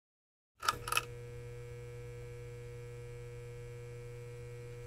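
Neon-sign sound effect: two sharp electrical crackles under a second in as the tube flickers on, then a steady electrical hum.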